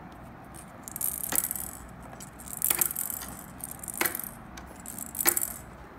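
Hollow plastic toy balls clattering and clicking against the hard plastic tray of a ball-ramp toy as they are picked out one by one: four short rattling bursts, about a second and a half apart.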